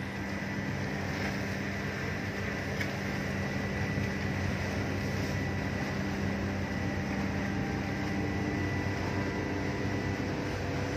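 Car ferry's engines running with a steady low hum and a faint high whine over it, heard from the lower deck as the ship comes alongside the pier.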